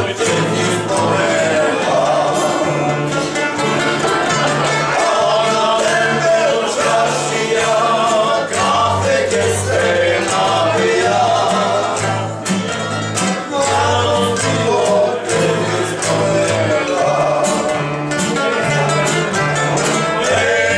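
Tamburica folk band playing a song, with double bass, strummed acoustic guitar and two tamburas, while the men sing together.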